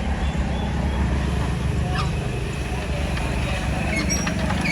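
Boat engine running steadily at a low pitch, with a few short duck calls about two seconds in and near the end.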